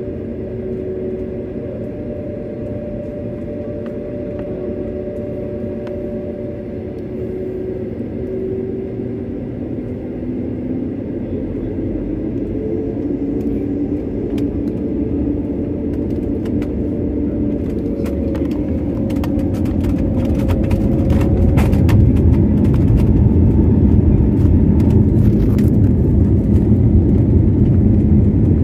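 Jet airliner's engines and cabin heard from inside the aircraft: a steady hum with whining tones at first, then the noise builds into a heavy, louder rumble from about two-thirds in as thrust comes up for the takeoff roll, with scattered rattles and clicks.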